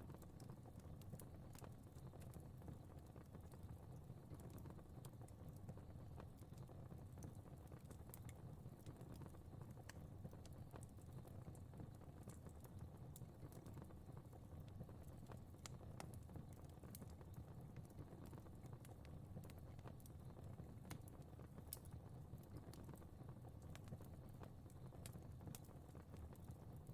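Fire crackling faintly: irregular small pops and snaps over a low, steady rumble.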